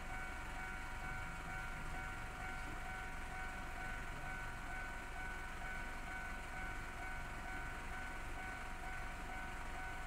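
Japanese railway level-crossing warning bell ringing steadily as a continuous electronic tone, with the barrier down, over a low street rumble.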